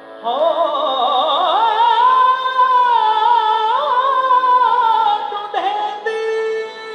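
A man sings a slow, ornamented devotional melody in Punjabi, with wavering held notes and vibrato over a steady drone, heard through a laptop's speakers. Near the end the voice slides down and a steady held note carries on underneath.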